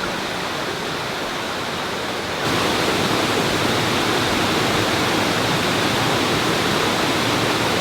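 Steady rush of a waterfall, which steps abruptly louder about two and a half seconds in.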